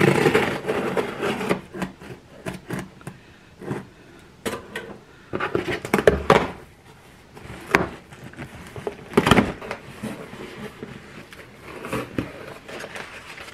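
A cardboard parcel being opened: scissors slitting the packing tape, the flaps pulled open, and paper packing rustling, in short irregular bursts and scrapes.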